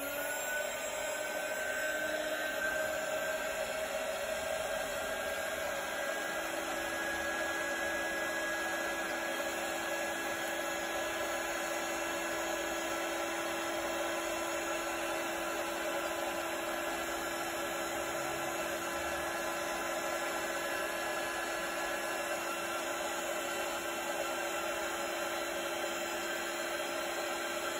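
Small handheld gas torch burning steadily with a blue flame, a constant hiss with a faint steady whistle, as it heats a plastic heat-shrink sleeve. It lights just at the start and runs on unchanged.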